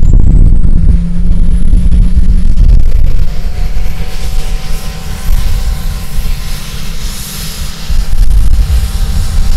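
Rolls-Royce Spey turbofan engines of a Hawker Siddeley Nimrod MR2 running on the ground: a high whine rises steadily in pitch as an engine spools up, over a loud low rumble. A steadier, lower hum joins about three seconds in.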